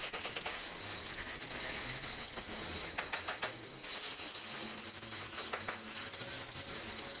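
Gas welding torch flame hissing steadily while aluminium filler rod is melted into a motorcycle crankcase. A quick run of sharp clicks comes about three seconds in, and a couple more later.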